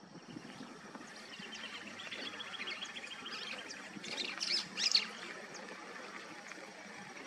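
Small birds chirping and calling, with a fast, even trill about two seconds in and a burst of louder, sharper chirps around the fifth second.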